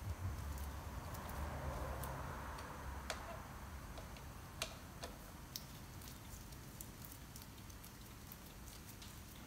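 Allen key turning stainless steel bolts on a motorcycle brake disc, giving scattered small metallic clicks and ticks, the sharpest a few seconds in.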